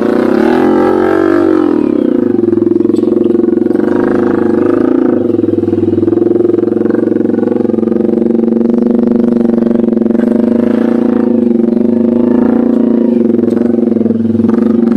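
Small Honda motorcycle's single-cylinder engine running steadily while being ridden, with a brief rise and fall in engine pitch in the first couple of seconds.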